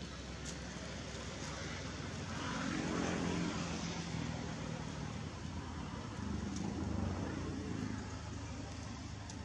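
A motor vehicle passing: its engine and tyre noise swells up about three seconds in and fades away, with a second, weaker swell near the end.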